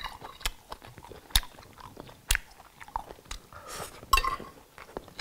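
Knife and fork cutting grilled pork chop on a plate, giving a few sharp clicks of metal on china, with chewing and mouth sounds between them.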